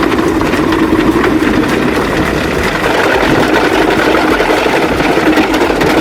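A heavy machine's engine running steadily, with a dense crackle of small knocks and clicks over it.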